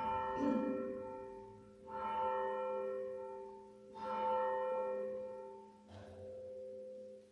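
Sanctus bell struck four times, about two seconds apart, each stroke ringing on and dying away, the last one softer. It is rung at the consecration of the wine in Holy Communion.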